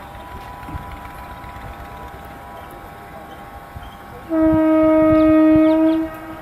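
Locomotive horn: one loud, steady blast of about two seconds starting about two-thirds of the way in, over a low rumble of rail noise and faint steady horn-like tones before it.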